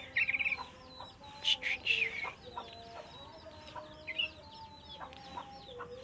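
Trucuk bird (yellow-vented bulbul) giving short chirping calls. One quick trill comes right at the start, then single chirps about a second and a half, two and four seconds in.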